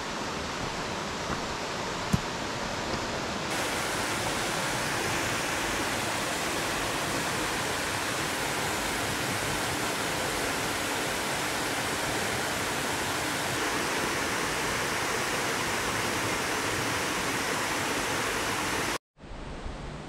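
Small waterfall pouring into a rock pool: a steady rush of falling water, with a single click about two seconds in. The rush cuts off abruptly near the end.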